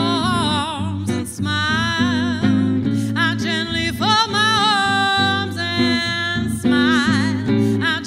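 A woman singing with vibrato over a strummed acoustic guitar, holding a long note in the middle.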